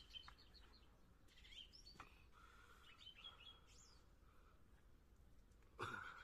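Faint birds chirping and calling in short, scattered phrases, with a few soft clicks. Near the end there is one brief, louder noise.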